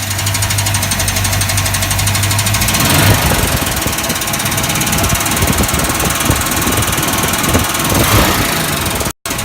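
1966 Ford Mustang engine running after a swap to an AOD automatic transmission: a steady idle, then from about three seconds in an irregular rattling and knocking over the engine for about five seconds, settling near the end. This is the unwanted noise that appeared after the AOD swap.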